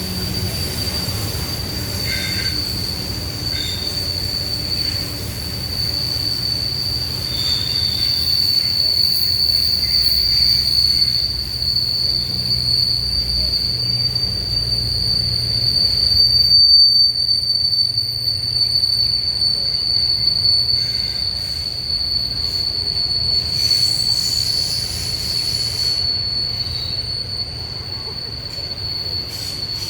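Wheel flanges of a long intermodal freight train squealing as the cars grind around a tight curve: a steady high-pitched squeal over the low rumble of the passing cars.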